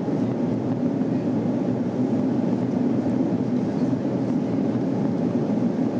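Steady cabin noise inside an Airbus A340 airliner during its descent: an even rumble of engines and airflow, heavy in the low and middle range.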